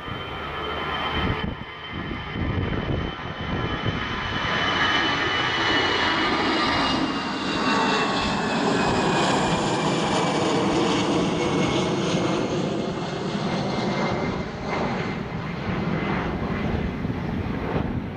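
Airliner's engines passing close: a loud, steady engine noise that swells and then eases, with a high whine that slowly falls in pitch as the aircraft goes by.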